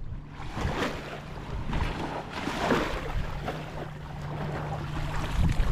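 Shallow seawater splashing and sloshing as a large fish is handled in it, over wind on the microphone and a steady low hum.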